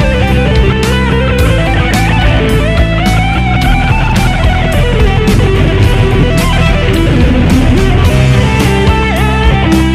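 Electric guitar played through a Mooer GE150 multi-effects processor: a distorted lead line with sustained notes and pitch bends, over a backing with a steady beat.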